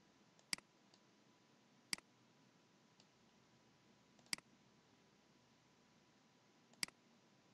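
Computer mouse button clicked four times, each a single sharp click, a second or two apart, over faint hiss.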